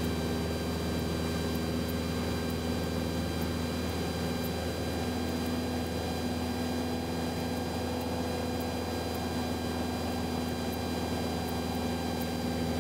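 Cessna 172's single piston engine and propeller running steadily at cruise, heard inside the cabin as an even drone that holds one pitch throughout.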